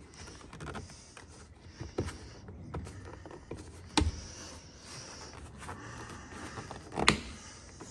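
A plastic door trim piece is worked loose by a gloved hand, with the plastic rubbing and scraping. Sharp clicks from its clips come about two, four and seven seconds in, the last the loudest.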